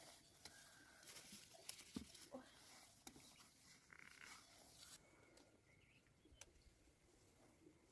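Near silence with faint scattered clicks and rustles, which thin out after about five seconds.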